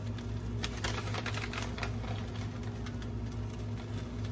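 Crinkling and rustling of a plastic cheese package being handled: a quick run of crisp crackles lasting about a second, over a steady low hum.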